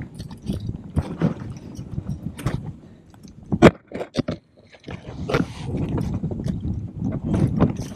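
Scraping, knocking and rustling of a freshly landed king salmon and fishing gear being handled on a kayak, with one sharp knock about three and a half seconds in and a brief hush just after it.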